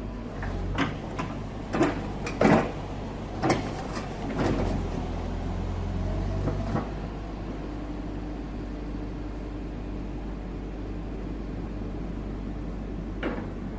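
Kobelco SK135SRD hydraulic excavator running with a steady low engine hum. There is a series of sharp clunks in the first five seconds and one more near the end. The machine's load rises briefly, with a faint whine, until about seven seconds in.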